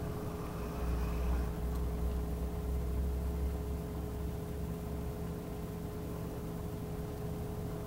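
Small dog snoring in her sleep: one long, low, rumbling snore in the first half, over a steady electrical hum. The owner takes her heavy snoring for a sign of a nightmare.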